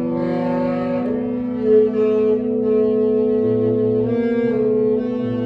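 A small ensemble of French horn, trombone and reed instrument playing long held notes together, the tones overlapping and shifting pitch at different moments, with a brief swell a little under two seconds in.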